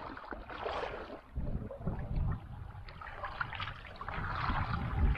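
Water sounds around a small inflatable boat on a river, with wind rumbling on the microphone in gusts, the strongest about a second and a half in.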